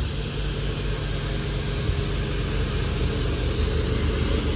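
Pressure washer engine running steadily under an even hiss of water spray.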